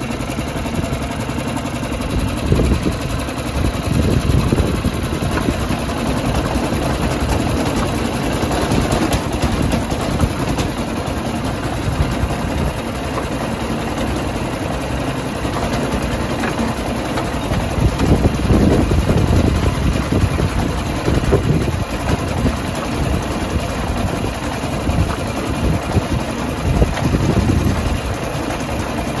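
The engine of a small miniature-railway locomotive running steadily as it moves a wagon along the track, a continuous low rumble with no pauses.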